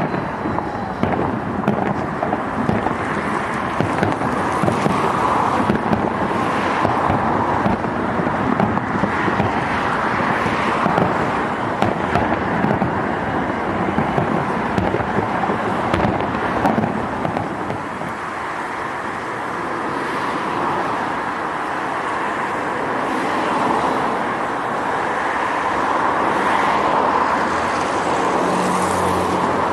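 Fireworks display going off: rapid pops and crackling bangs over a steady rumble, thinning out about two-thirds of the way through, with passing road traffic heard near the end.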